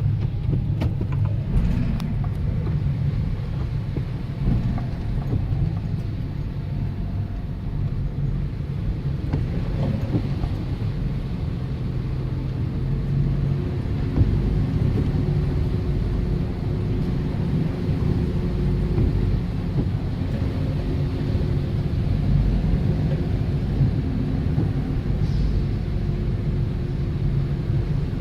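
A car driving: a steady low rumble of engine and road noise, with a faint engine hum that holds steady through the second half.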